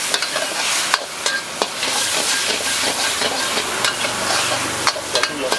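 Rice noodles, egg and bean sprouts sizzling in a hot wok while a metal spatula scrapes and clanks against the pan as it tosses them. A steady hiss runs under sharp scattered clacks, a few of them louder, about one and one and a half seconds in and again near the end.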